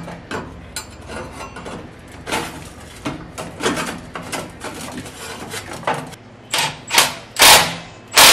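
Stainless steel exhaust pipe clinking and knocking as it is worked onto the exhaust, then four sharp hammer strikes on the pipe in the last two seconds, knocking it into place.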